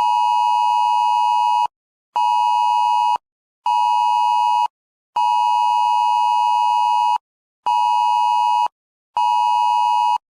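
Emergency Alert System two-tone attention signal, two steady tones sounding together, in six pulses: a long tone, two short ones, another long one, then two more short ones.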